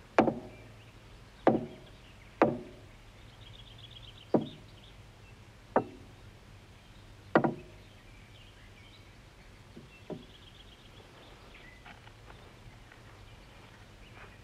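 A hammer knocking on a wooden tabletop: six sharp, irregularly spaced knocks over about seven seconds, then a fainter one a couple of seconds later.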